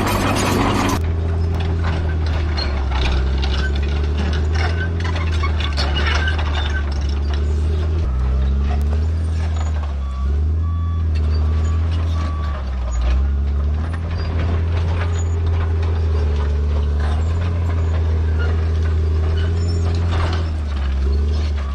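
Bulldozer's diesel engine running steadily under load, its pitch shifting now and then, with clanking and knocking throughout. A reversing alarm beeps about three times near the middle and once more near the end.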